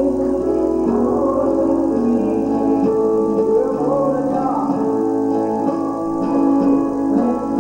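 Gospel song: singing with instrumental accompaniment.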